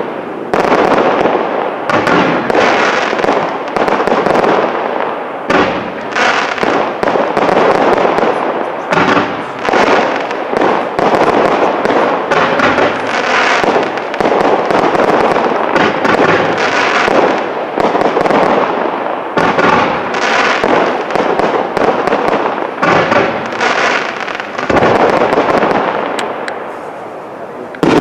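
Fireworks display: aerial shells bursting in quick succession, a dense, almost continuous barrage of bangs and crackle that eases briefly near the end.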